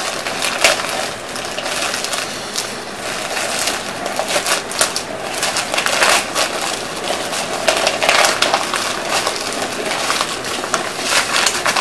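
Plastic shipping bag crinkling and crackling continuously as it is handled and opened by hand, with the parts' inner plastic bag rustling as it is pulled out.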